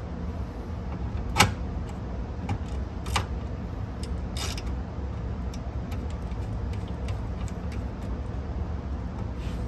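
A few sharp clicks and light clinks of parts and screws being handled while a cassette deck is reassembled, the loudest about a second and a half in, over a steady low rumble.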